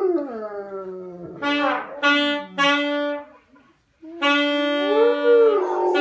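A dog howling along with saxophone and trombone. At the start the dog's howl slides down and trails off. Three short held horn notes follow, then a brief dropout, then a long held note with the dog's howl rising and falling over it near the end.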